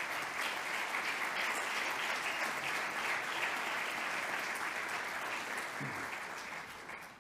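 Audience applauding steadily at the end of a speech, dying away near the end.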